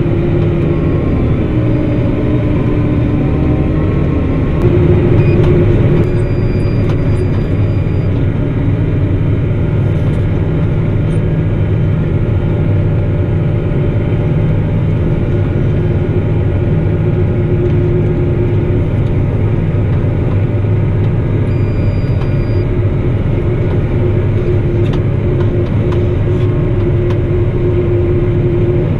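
Claas Axion 850 tractor's six-cylinder diesel engine running steadily under load while pulling a seed drill, heard from inside the cab as a low, even drone with a steady hum over it.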